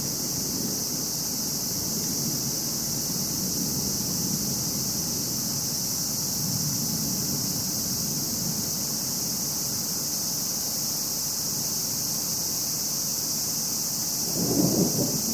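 Thunder rumbling low and unevenly, swelling louder near the end, over a steady high-pitched hiss.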